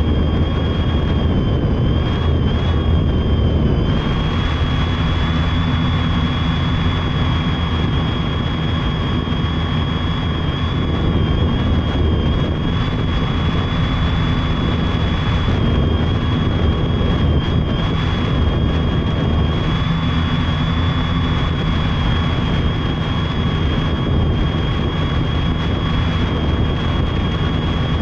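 Multirotor drone's electric motors and propellers running steadily in flight, heard from the drone's own onboard camera: a steady high whine over a dense low rush.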